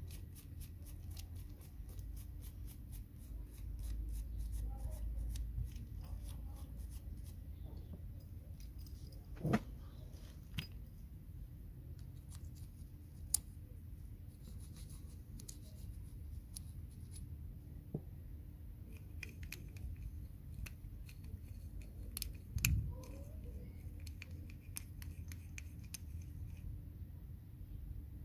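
Faint small clicks and light scraping from hand work on the parts of a disassembled Mercedes door lock actuator, with a few louder sharp clicks scattered through.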